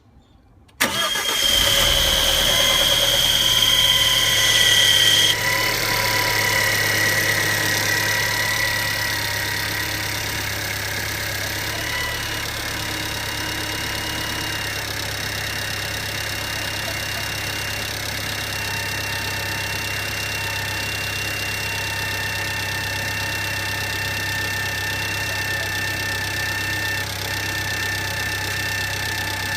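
A car engine starts about a second in and settles to a steady idle, with thin high-pitched whining tones running over it: an abnormal noise from the engine's accessories. A louder, higher whistle in the first few seconds cuts off about five seconds in.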